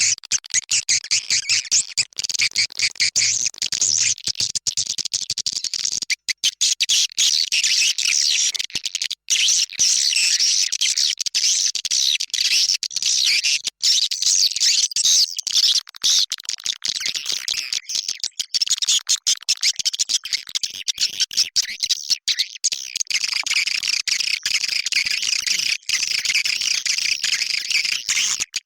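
Recorded swiftlet calls played as a lure track for a swiftlet house: dense, high-pitched twittering chirps that go on without a break in the calling, cut by many brief dropouts.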